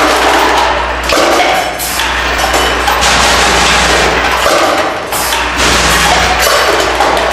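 Delta Counter LCM22 piece-counting machine running, with brass fittings clattering and rattling continuously through it over a steady low hum.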